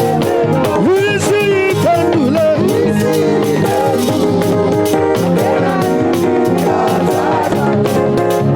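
Live upbeat praise music: a band with guitar and steady drum beat, with voices singing over it.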